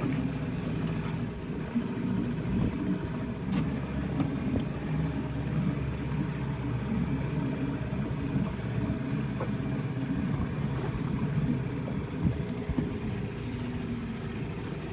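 A boat's motor running steadily at low speed, with a sharp knock about three and a half seconds in.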